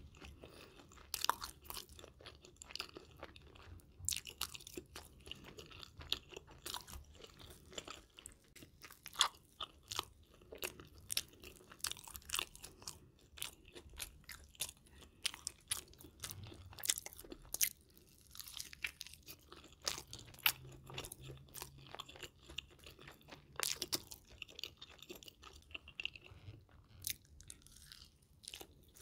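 Close-miked chewing and crunching of a beef cheeseburger, with sharp crunchy crackles coming irregularly throughout.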